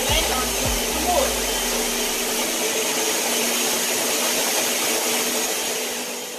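Countertop blender running steadily as it purees cucumber and lemon into juice, its motor hum fading near the end.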